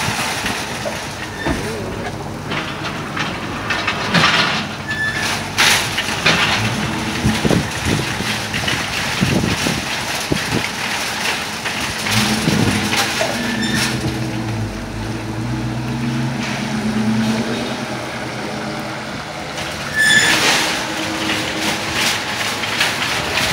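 Heavy rain pouring on the parking lot, with a long train of metal shopping carts rattling past as a powered cart pusher moves them, and occasional sharp clanks.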